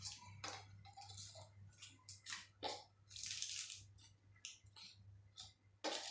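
Faint scattered rustles and light taps from wrapped chocolate bars and glasses being handled over a tiled floor, with one louder knock near the end, over a low steady hum.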